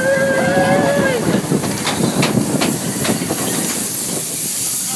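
Big Thunder Mountain Railroad mine-train roller coaster rattling and clacking along its track, with a rider's long held cry in the first second. From about three seconds in, a steady hiss sets in as the train slows.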